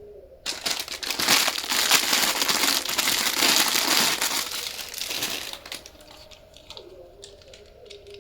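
Crinkly wrapping being crumpled and handled: loud, dense crinkling that starts about half a second in and dies away near the six-second mark. After it come scattered light clicks and ticks.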